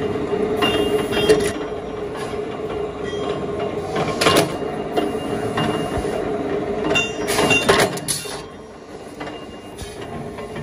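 Mechanical punch press running with a steady hum, banging as its ram punches round blanks out of steel strip, roughly every three seconds. It is quieter near the end.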